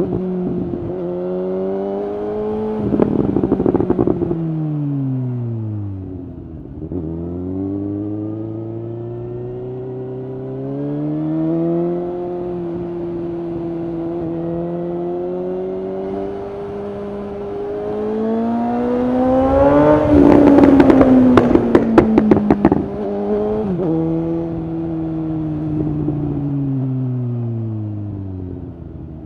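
A 2019 Suzuki GSX-S750's inline-four, running through a Yoshimura SQ11 exhaust with no dB killer and a decat, revs hard through the gears. The pitch climbs and steps at each shift, then falls away as it slows. About three seconds in, and loudest around twenty seconds in, the exhaust crackles and pops as the revs drop on the overrun.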